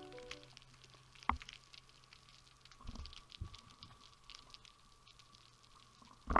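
Underwater ambience as picked up by a camera in its housing: a dense, faint crackle of tiny clicks, with a few sharper knocks about a second in, around three seconds in and a louder one near the end.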